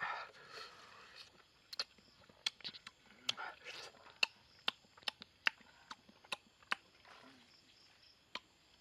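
A person biting into and chewing fruit close to the microphone, with many sharp, irregular crunching and smacking clicks.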